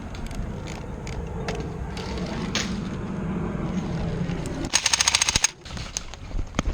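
Airsoft guns firing: scattered single shots, then a short full-auto burst of about a dozen rapid shots a little under five seconds in. A steady low rumble runs underneath until just before the burst.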